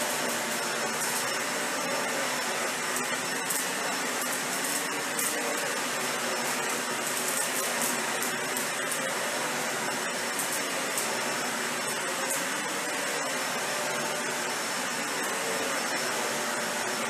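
Dyson Ball Animal 3 upright vacuum running steadily as it is pushed back and forth over deep pile shag carpet, picking up rice, with its suction control set for deep pile.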